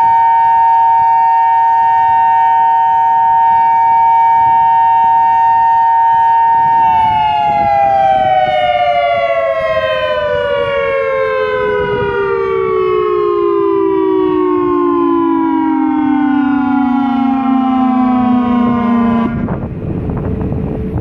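Federal Signal Modulator 5020 outdoor warning siren sounding a loud steady two-note tone. About seven seconds in it winds down in one long falling glide over roughly twelve seconds, then cuts off suddenly near the end.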